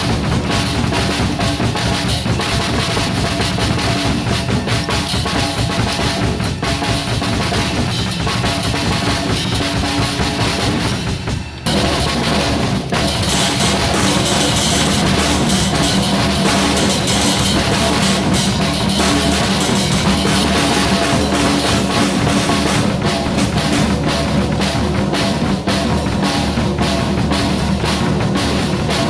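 Acoustic drum kit played continuously, bass drum, drums and cymbals, with a short break about eleven and a half seconds in, after which the cymbals ring louder.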